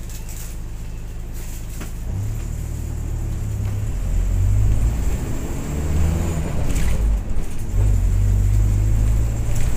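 Road vehicle's engine heard from inside, running low and steady, then rising about two seconds in and growing louder from about four seconds in as the vehicle pulls away and gathers speed.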